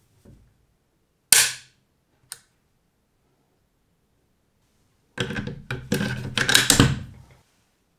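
Bolt-action rifle action being worked by hand: one loud, sharp metallic click about a second in and a lighter click a second later, then from about five seconds in a two-second run of metal clicks and sliding as the steel bolt is drawn back and run through the receiver.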